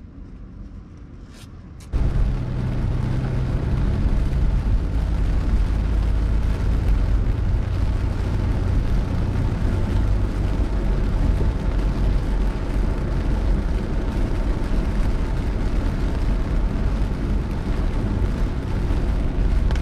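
Car driving through heavy rain, heard from inside: a loud, steady low rumble of tyres on the wet road and engine under a hiss of rain on the windscreen, starting suddenly about two seconds in.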